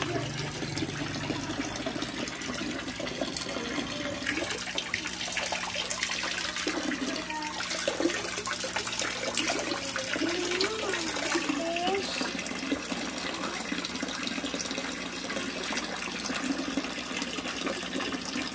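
Water pouring from a filter return pipe and splashing steadily into a pond.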